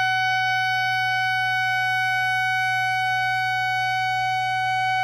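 Clarinet mouthpiece and barrel, without the rest of the instrument, blown as one long steady high note with a firm embouchure: the beginner's first-lesson mouthpiece-and-barrel tone exercise.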